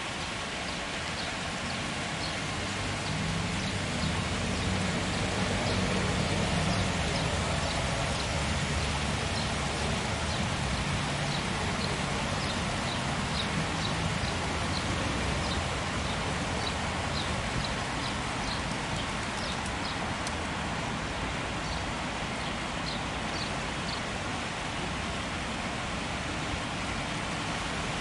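Steady splashing of falling water from an artificial waterfall, with a low rumble of road traffic underneath that is strongest in the first half.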